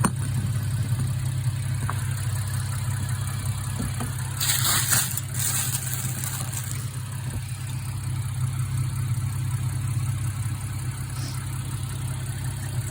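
Infiniti Q50 AWD's engine idling steadily with the front wheel off. About four seconds in come two short bursts of hissing noise.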